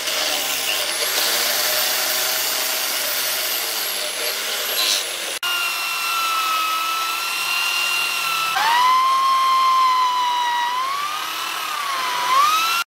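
Angle grinder with a sanding disc grinding against a thnong-wood axe handle, a steady hiss. After a sudden cut, a corded electric drill whines as it bores into the wooden handle; its whine jumps up in pitch about two-thirds of the way through and wavers up and down near the end.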